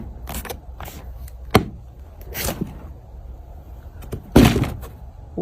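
Box being opened and handled: scattered taps and knocks, with a louder thud about four and a half seconds in.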